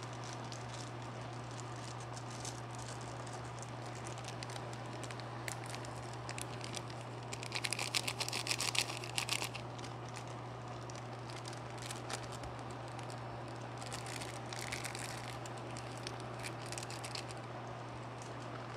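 Pot of instant ramen boiling, a steady bubbling over a low hum. About seven seconds in and again around fourteen seconds, seasoning sachets crinkle as they are torn open and shaken into the pot.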